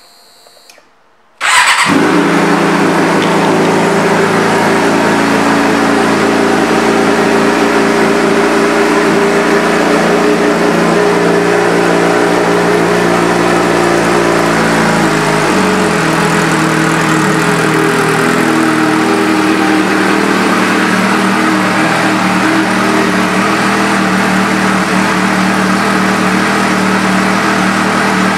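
2007 Suzuki GSX-R600's 600 cc inline-four, fitted with an aftermarket exhaust, fires up suddenly about a second and a half in and then idles steadily and loudly; the idle note shifts about halfway through.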